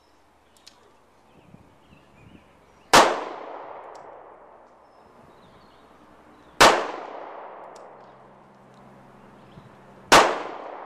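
Three handgun shots fired slowly, about three and a half seconds apart, each a sharp report followed by a long echoing tail.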